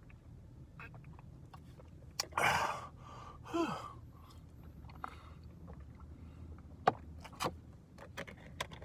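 Close-up eating sounds in a truck cab: scattered sharp clicks and chewing, a breathy exhale about two and a half seconds in, then a short low vocal sound falling in pitch, over a low steady hum.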